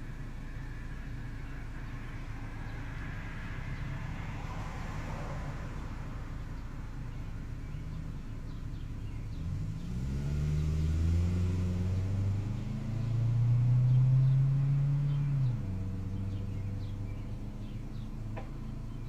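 Steady low rumble of background traffic; about ten seconds in, a motor vehicle's engine note rises and holds for about six seconds, loudest near the middle, then stops abruptly.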